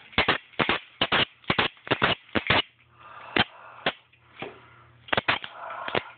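Blades of a Freddy Krueger-style bladed glove clicking together: an irregular series of sharp clicks, many in quick pairs.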